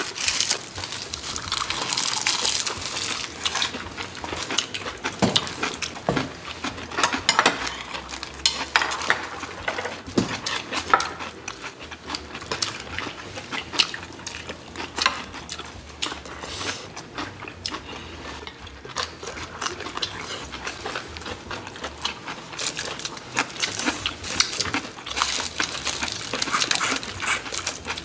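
Close-up wet eating sounds: chewing and slurping soy-sauce-marinated raw crab and rice, with frequent small clicks and clinks of chopsticks and spoons on dishes.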